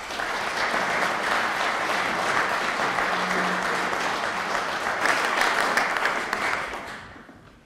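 Audience applauding in welcome, a dense steady clapping that dies away over the last second or so.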